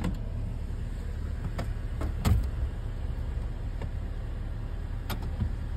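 Clunks and knocks of people climbing into the back seats of a car, the loudest about two seconds in, over a steady low rumble in the cabin.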